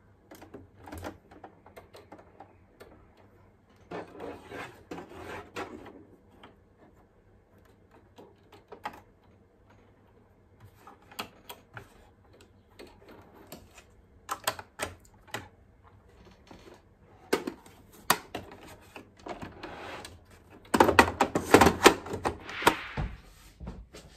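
Small clicks, taps and rustling of hands threading a sewing machine and working its parts, with a louder spell of clattering and rustling near the end.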